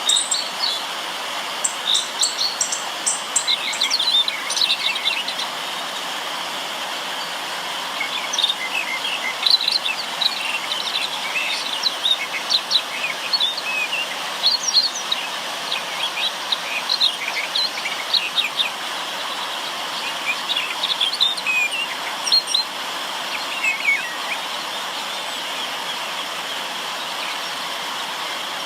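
Many small birds chirping and calling in quick, short notes over the steady rush of river water. The chirping pauses briefly about 6 seconds in and thins out near the end, leaving mostly the water.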